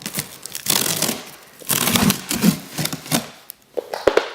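Cardboard shipping box being handled and opened: irregular scraping and rustling of cardboard and packing material, with sharp clicks and knocks.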